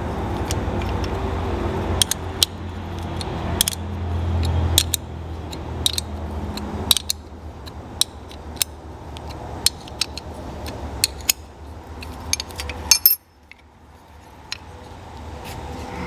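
Small steel parts of a mower throttle lever assembly clinking and tapping as they are handled and fitted together, a string of sharp separate clicks over a steady low hum. The hum cuts out suddenly about 13 seconds in.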